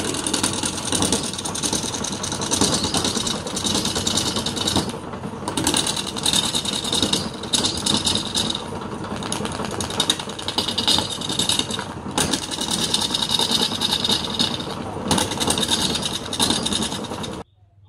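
Wood lathe running while a long flat turning tool scrapes across the face of a large spinning wooden disc: a loud, steady rasp of cutting in passes that break off briefly every few seconds, over the machine's running noise. It cuts off suddenly near the end.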